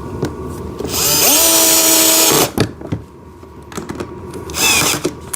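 Power drill driving screws: the motor whines up about a second in, runs for about a second and a half and stops, then a second, shorter burst near the end.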